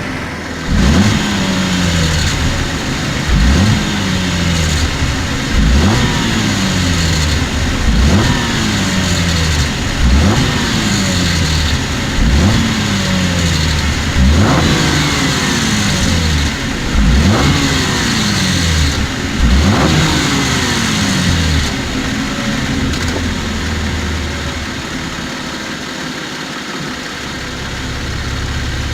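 2014 Cadillac CTS V-Sport's twin-turbo V6 blipped in neutral about nine times, every two to two and a half seconds, then settling to a steady idle for the last several seconds. Each time the throttle is let off, a rattly tin sound comes from the turbo area as it comes out of boost; the dealership found nothing wrong.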